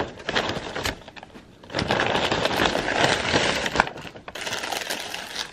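A paper takeout bag and a paper food wrapper rustling and crinkling as food is pulled out and handled, thickest for about two seconds in the middle.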